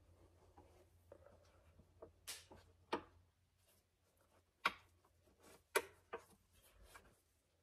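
Scattered sharp clicks and taps from an LED headlight bulb and its headlight housing being handled while the bulb is worked into place. Four louder clicks stand out, about two, three, four and a half and six seconds in.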